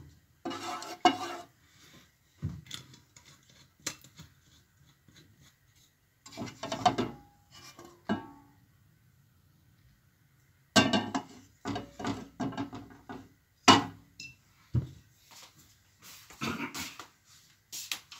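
Wooden spatula scraping and knocking against a non-stick frying pan in irregular bursts of clatter, with short quiet gaps between them.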